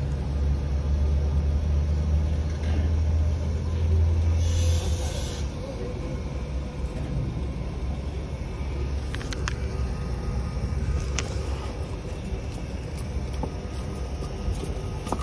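Low rumble of a motor vehicle, loudest over the first five seconds and then easing off, with a short hiss about five seconds in.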